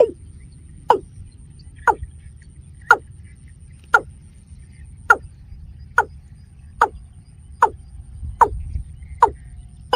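Watercock calling: a short note sliding quickly down in pitch, repeated about once a second in a steady series that quickens slightly toward the end. A faint steady high whine and a low rumble run underneath.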